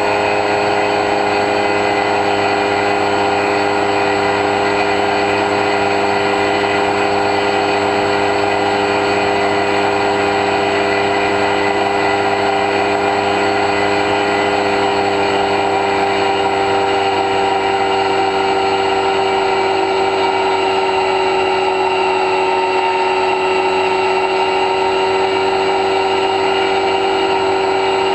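Electric motor and pusher propeller of an X-UAV Talon model plane running steadily in flight, heard through the onboard camera as a loud whine of several even tones.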